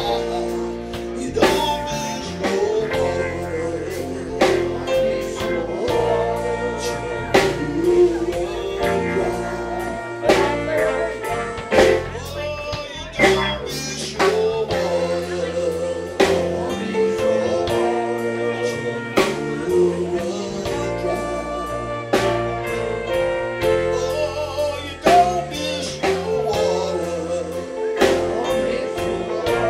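Live blues band playing: drum kit keeping a steady beat under a walking bass line, with guitar and held notes on top.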